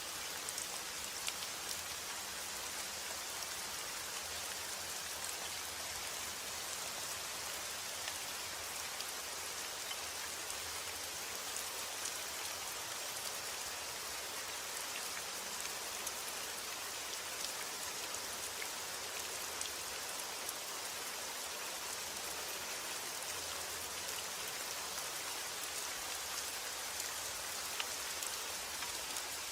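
Steady rain falling: an even, dense hiss with scattered sharp ticks of single drops striking a surface.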